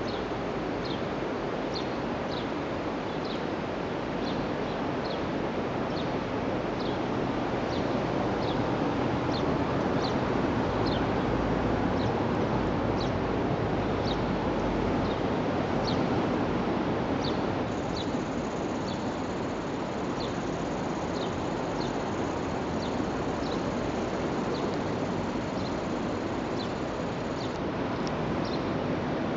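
Steady outdoor wash of surf and wind, with a small bird repeating a short, high, falling chirp about once a second. A faint thin high whine joins for about ten seconds in the second half.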